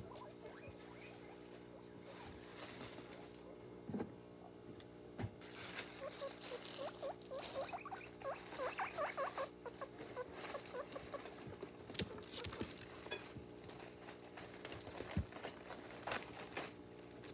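Guinea pig squeaking in a quick run of short calls from about five to ten seconds in, with a plastic bag of greens crinkling and a few light knocks.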